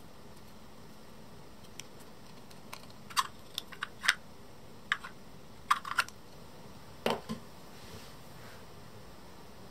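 Light, sharp clicks and taps of a tiny plastic Re-Ment miniature dresser being handled, its little drawer slid open and shut: about a dozen irregular clicks over some four seconds, with a duller knock near the end as the piece is set down.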